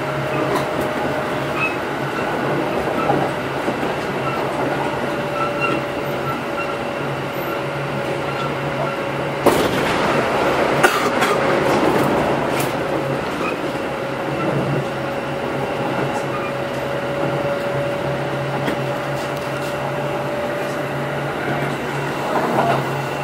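Kintetsu 8810 series electric train running between stations, heard from on board: a steady hum and whine over rail noise. About ten seconds in, the rush grows louder for a few seconds, with a few sharp clicks.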